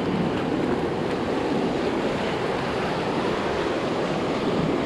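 Ocean surf washing onto a sandy beach as the tide comes in: a steady, even rush of small waves.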